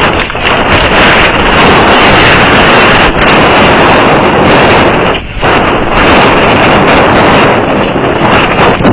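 Wind buffeting the microphone: a loud, steady rushing noise that drowns out everything else, with a brief lull about five seconds in.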